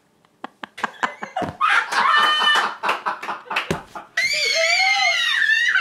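A woman laughing hard, breaking into a long, high-pitched, shrieking laugh about four seconds in.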